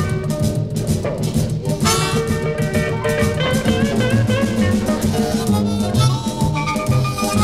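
Live electric blues band playing an instrumental stretch, with drums and guitar, recorded from the soundboard.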